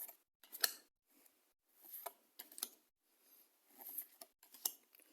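Pokémon trading cards being slid and flicked over one another, a series of short, faint scrapes every half second or so as each card is pulled off the stack.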